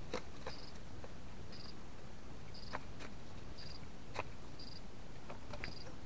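A pheasant pecking at seed: several sharp, irregular taps. Behind them a short high note repeats very regularly, about once a second.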